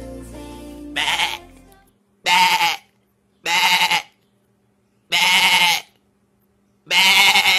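A lamb bleating loudly, five separate bleats about a second apart, each about half a second long with silence between them. Soft background music fades out under the first one.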